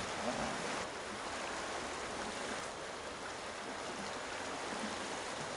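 Steady wash of sea waves against shoreline rocks, an even hiss with no distinct strokes.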